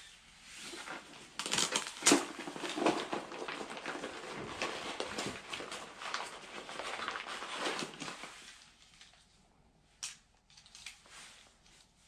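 Hands rummaging through the pockets of a mesh fishing vest: fabric rustling and small pieces of gear clattering and clicking, then a few separate sharp clicks near the end.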